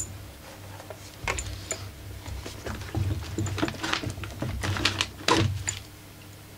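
Hard plastic housing of a portable inverter generator being handled and worked loose: a run of irregular clicks, knocks and rattles, loudest a little after five seconds.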